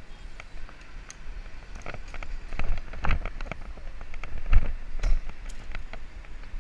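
A bicycle and its mounted camera rattling and knocking as the bike rides over paving and road surface: irregular clicks with a few heavier thumps, the loudest about four and a half seconds in, over a low wind rumble on the microphone.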